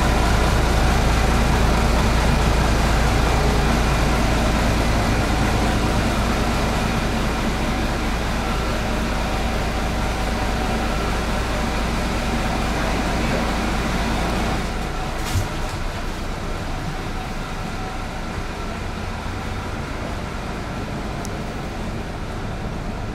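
A motor vehicle running steadily, with a heavy low rumble that drops away about fifteen seconds in, followed by a single click.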